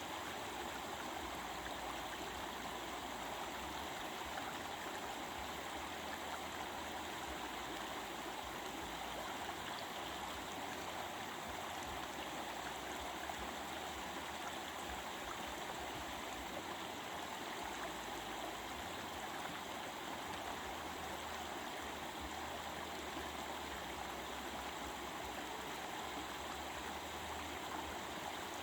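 Stream of water flowing and babbling steadily over rocks, an even unbroken rush.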